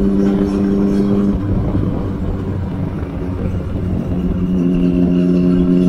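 Triumph Street Triple 675's inline three-cylinder engine at highway cruise through an aftermarket Two Brothers exhaust, heard from a motorcycle following close behind: a loud, steady drone. About a second and a half in, the note fades under wind and road rush, then comes back a little lower in pitch near the end.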